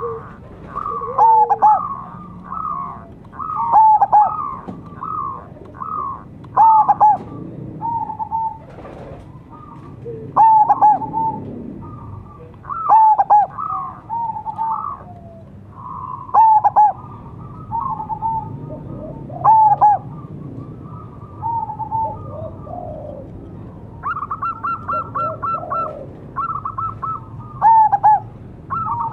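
Zebra dove (perkutut) cooing: phrases of short, pitched coos, with a louder falling note every few seconds and a quick run of staccato notes near the end.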